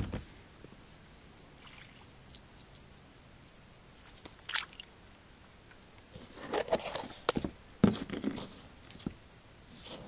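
Small water splashes and sloshing with scattered knocks and rustling from handling gear in a packraft, busiest about two-thirds of the way through, with a couple of sharp knocks there.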